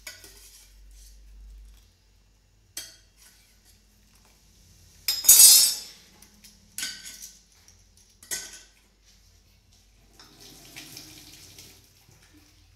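Stainless-steel pot, colander and bowl clanking against each other, several separate clanks with the loudest about five seconds in, then hot water poured and splashing about ten seconds in as the blanched drumstick flowers are drained.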